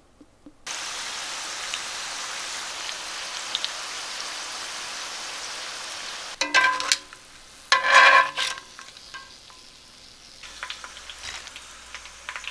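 Corn tortilla wedges frying in vegetable oil in a cast-iron skillet, a steady sizzle. About six seconds in the sizzle cuts off and two louder short bursts with a ringing note follow, then lighter scattered crackles and clicks.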